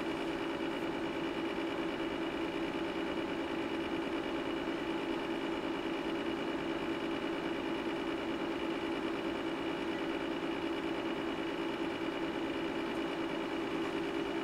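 Steady hum of cooling fans in bench electronic test equipment, with a few thin steady whining tones over it.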